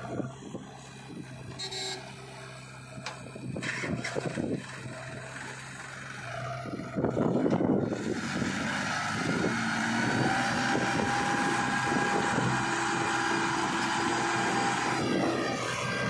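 Diesel engines of a Sonalika tractor and a JCB 3DX backhoe loader idling with a few clunks. About seven seconds in they rev up with a loud surge, then run steadily at high revs with a whine.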